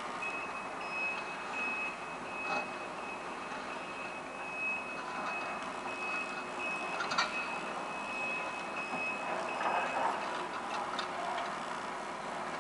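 Backup alarm on heavy equipment beeping in a steady run over machinery running, stopping about three-quarters of the way through. A sharp clank comes a little past halfway.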